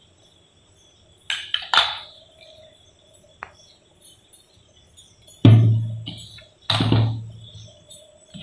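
A steel mixer-grinder jar being knocked and tapped to empty freshly ground rice flour into a plastic bowl. A few sharp knocks come a little over a second in, then two louder, heavier knocks about a second apart near the end, each dying away within a second.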